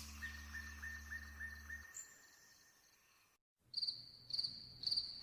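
Soft ambient music with a low drone fades out over the first two seconds. After a moment of silence, a cricket starts chirping about twice a second, each chirp a short high trill.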